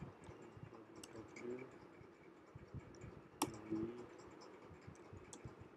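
Quiet computer keyboard typing: scattered soft keystrokes, with one sharper click a little past halfway.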